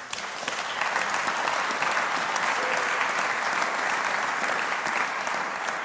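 Large audience applauding: many hands clapping that starts at once, holds steady and begins to ease off near the end.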